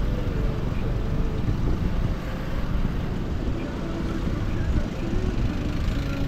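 Honda motorcycle engine running at low speed while riding slowly in traffic, its pitch shifting a little, under a steady rushing noise.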